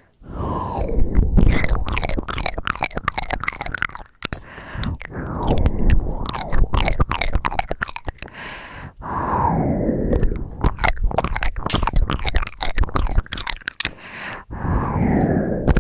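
Close-miked ASMR mouth sounds: a dense run of wet clicks and smacks, with a long breathy exhale that falls in pitch about every four to five seconds.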